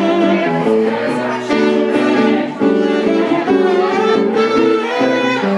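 Live jazz duo of saxophone and guitar playing, the saxophone carrying a moving melodic line over the guitar's chords.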